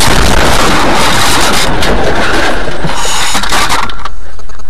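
Car crash: a sudden loud impact, then about four seconds of dense crunching and knocking that stops abruptly.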